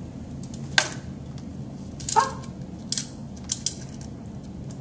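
A small plastic toy clicking and tapping as it is handled and set down on a tabletop and book: about five short sharp taps, two of them close together about three and a half seconds in, over a steady low room hum.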